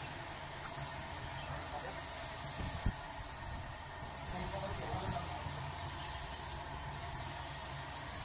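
Steady low background hum with a faint hiss, and one short knock about three seconds in.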